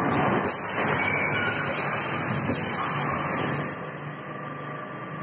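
Cup packaging machine with a 4×2 cup layout running. Its noise swells loud with a hiss for about three and a half seconds, then drops to a lower running level.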